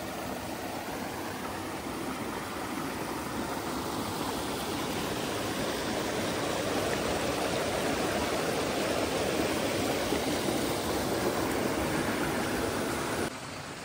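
Water pouring over a small weir from a pond into a stream, a steady rush that grows a little louder midway and drops off suddenly near the end.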